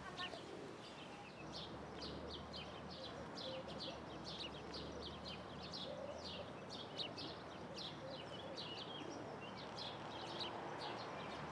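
Small birds chirping, a quick run of short high chirps about two or three a second, over steady background noise.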